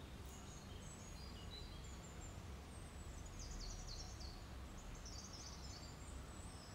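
Faint bird chirps, short high twitters that cluster about halfway through, over a low steady background hum.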